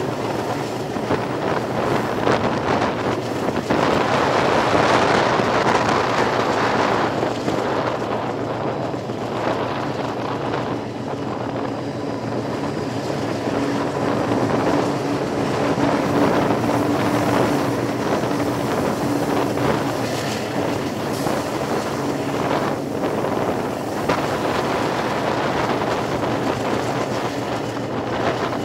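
Train running along the track: a steady rolling rumble with heavy wind buffeting the microphone. A low steady hum joins for several seconds in the middle.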